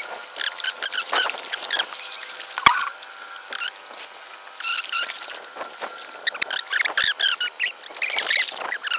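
Small birds chirping and twittering: many short, high, quick chirps, thickest in the second half.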